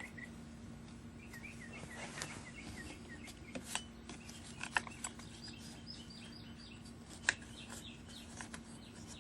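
Birds chirping in quick series of short notes, with a few sharp light clicks, the loudest about seven seconds in, over a steady low hum.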